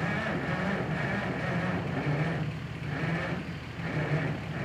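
An engine running steadily at idle: a low, slightly wavering hum that starts suddenly.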